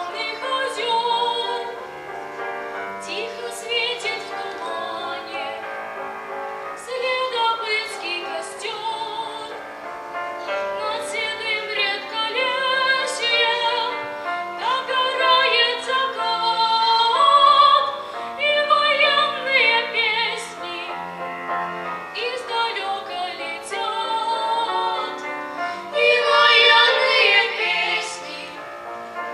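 Children's vocal ensemble singing a song in unison and harmony, with piano accompaniment.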